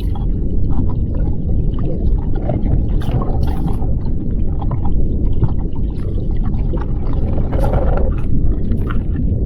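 Muffled underwater ambience heard through a waterproof action camera's housing: a steady low rumble with scattered faint clicks and crackles.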